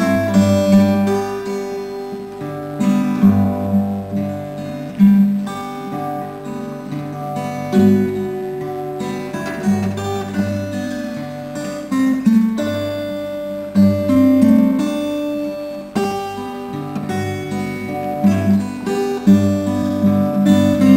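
Solo acoustic guitar doodling: a loose run of picked notes and strummed chords, each struck note ringing on.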